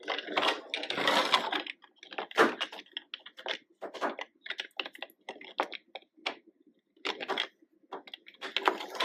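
Plastic toy construction vehicle being handled: an irregular run of light clicks and rattles, with longer scraping rustles at the start and near the end.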